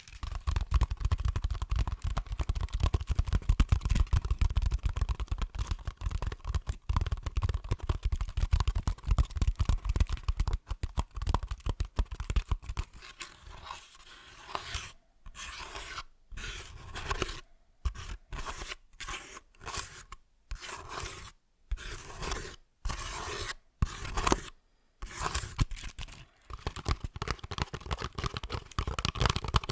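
A woven basket being scratched and scraped for ASMR, making a crackly, crunchy scraping. The first dozen seconds are dense and continuous; after that it comes in shorter strokes with brief pauses between them.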